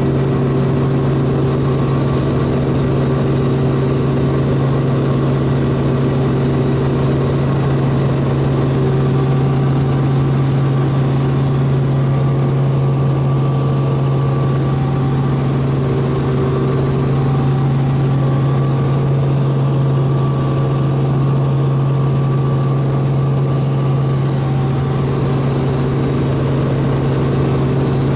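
Steady drone of a light helicopter's engine and rotors heard from inside the cabin in flight: a loud low hum with a few steady higher tones above it.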